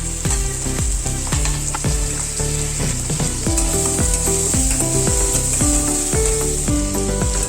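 Indian mackerel (bangda) frying in hot oil, a steady sizzle, under background music with a regular beat.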